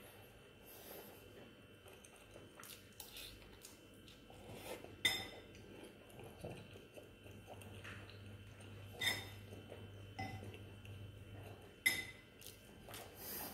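Metal spoon clinking against a ceramic bowl while eating noodles: three sharp, ringing clinks a few seconds apart, with softer scrapes and chewing between.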